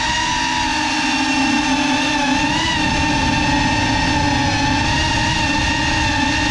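FPV quadcopter's brushless motors and propellers whining steadily, the pitch wavering a little as the throttle changes, with a low rush of wind on the onboard camera's microphone.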